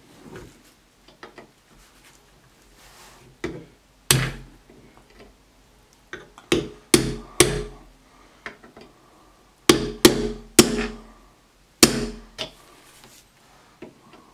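A hammer tapping a flat-edged punch against the head of a one-way anti-tamper screw on a Crosman 2250 air rifle to knock the screw loose: about ten sharp, slightly ringing metal taps in irregular groups, starting a few seconds in.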